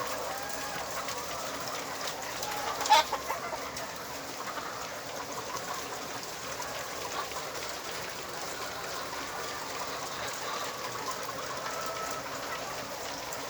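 A shed full of laying hens clucking and murmuring steadily, with one loud, sharp sound about three seconds in.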